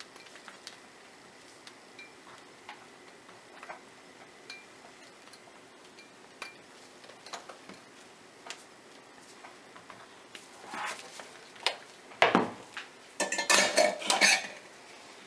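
Scattered light clinks and taps of utensils against mixing containers while soap batter is worked, then a louder clatter of containers and tools being handled and set down near the end.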